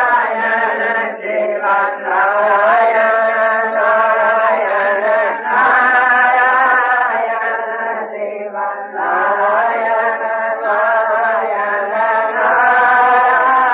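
Devotional chanting: a voice singing long held phrases whose pitch wavers and glides, with short breaks every few seconds.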